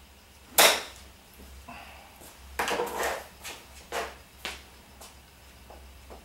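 A golf club strikes a ball off a hitting mat about half a second in, one sharp crack, the loudest sound. Smaller knocks and clatters follow a couple of seconds later, then a few single clicks.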